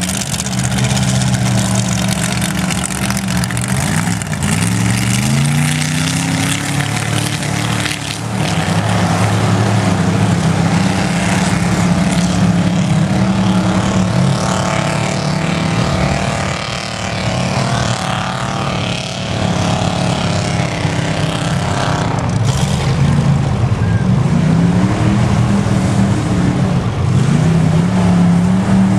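Lifted Dodge Durango on large mud tires running hard through a mud pit, the engine steady under load with its pitch rising and falling as the throttle is worked, climbing sharply twice, a few seconds in and again near the end.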